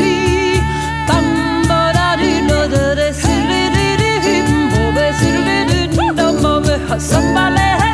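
Music: an ornamented, wavering vocal-style melody over sustained bass notes and a steady drumbeat.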